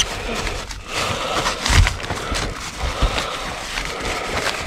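Bagged produce and packaging being rummaged through by hand in a dumpster: continuous rustling and crinkling with scattered small knocks.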